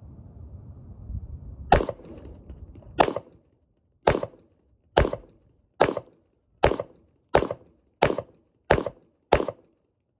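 Ten pistol shots from a Springfield XDM Elite Compact 9mm, fired one at a time in a string that quickens from about one shot every second and a half to one about every two-thirds of a second.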